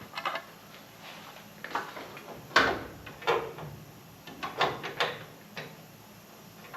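Steel sheet-metal repair pieces knocking and clinking as they are handled and worked into place on the body, a string of irregular knocks with the sharpest about two and a half seconds in.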